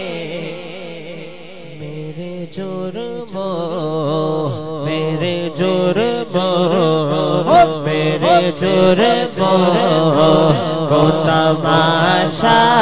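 Male vocalist singing an Urdu devotional kalam (naat) into a microphone in a long, wavering, ornamented line over a steady low drone. The singing is soft at first and grows louder after about two seconds.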